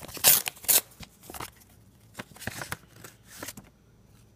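Paper envelope rustling and crinkling as it is handled and a card is pulled out of it, with a few loud bursts in the first second and softer ones after, stopping shortly before the end.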